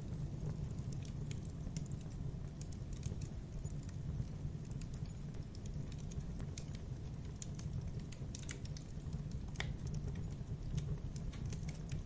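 Campfire burning: irregular crackles and sharp pops of burning wood over a steady low rumble of the flames, with one louder snap a little before the end.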